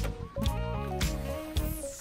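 Background music with a steady beat, with a high falling sweep near the end.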